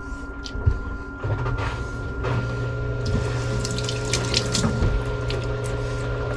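Kitchen sink faucet running, water splashing into the sink over hands rinsing under the stream. A steady low hum sets in about a second in and stays through, with a few small clicks and knocks on top.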